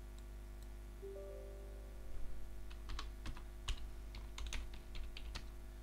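Computer keyboard typing: an irregular run of a dozen or so sharp clicks starting about two seconds in, over a low steady hum.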